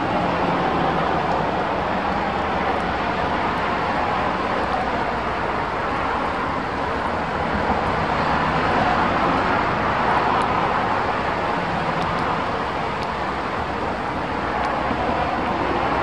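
Strong wind making a steady rushing roar that swells and eases a little.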